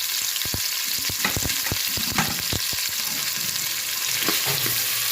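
Sliced onions and chillies sizzling in hot oil in a cooking pot, freshly added, with a steady hiss and frequent crackling pops.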